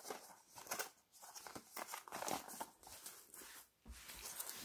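Cardboard packaging handled and opened: the box flap and its contents rustle and scrape in irregular bursts. Near the end the box gives a soft bump as it is stood on the table.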